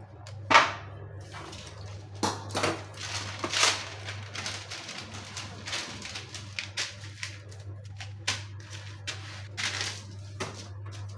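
Sheets of baking paper being handled, lifted and smoothed flat on a wooden board: a run of crisp crinkles and rustles, the sharpest about half a second in. A steady low hum runs underneath.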